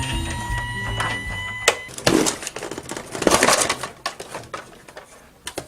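Background music ending about two seconds in, followed by a few bursts of rustling and clattering as plastic toys are handled and moved.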